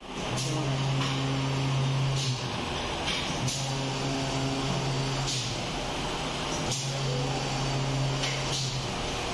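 Rotary sandal-moulding machine running through its cycle: a low steady hum comes on for about two seconds, then stops for about a second, three times in a regular rhythm, with a short hiss each time it starts and stops.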